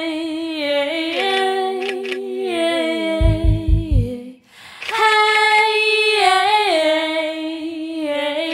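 Background music: a held, gliding sung vocal line with a few low bass beats about three seconds in and a brief break about four and a half seconds in.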